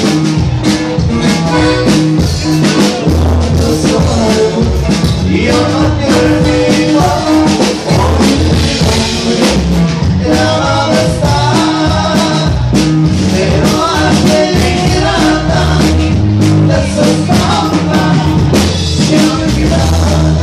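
A norteño band playing live, with singing over bass guitar and drums.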